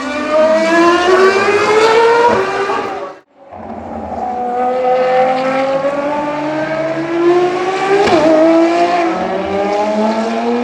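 Ferrari race car engines accelerating hard, pitch climbing steadily. The sound cuts off abruptly about three seconds in, then a second car climbs more slowly through the revs, with a brief break near the eight-second mark.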